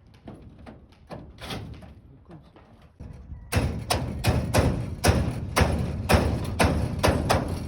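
Repeated hammer blows on aluminium roofing, about two a second, starting loud about three and a half seconds in after a few fainter knocks.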